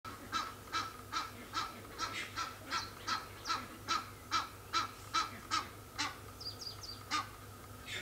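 Egyptian goose giving a steady run of harsh honking calls, about two and a half a second, that breaks off briefly near the end. Three short high falling whistles sound in the pause.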